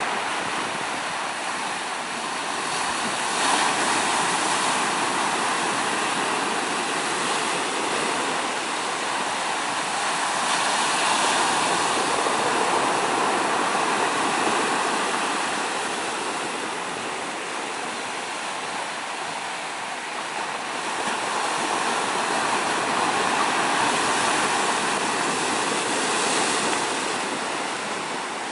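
Ocean surf breaking and washing over a shore of dark rounded pebbles, a continuous rush of water that swells louder and eases off as each set of waves comes in.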